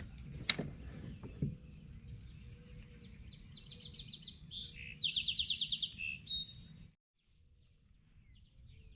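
Insects, such as cicadas or crickets, drone steadily in a high band. Twice in the middle a bird sings a quick run of repeated notes. The sound cuts out for about a second near the end.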